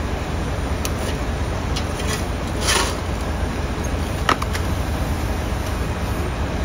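A steady low street rumble of idling vehicles, with a few sharp metallic clinks and scrapes as a firefighter's hand tool pokes through a pile of burnt garbage debris on the pavement. A brief rushing swish comes near the middle, and the sharpest clink about two-thirds of the way through.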